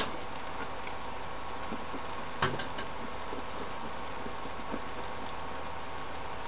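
Steady low room hum with a few faint held tones. About two and a half seconds in, a single knock on the tabletop is followed by two small clicks, as a glass is set down.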